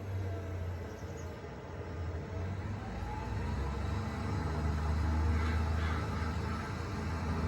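Deutz Fahr 7250 TTV tractor's six-cylinder diesel engine running steadily under load while pulling a five-furrow moldboard plow. It grows louder from about halfway through.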